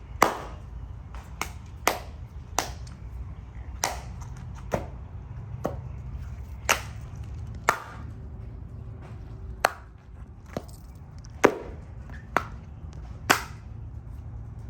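Sharp, irregular knocks, about one a second, over a low steady rumble.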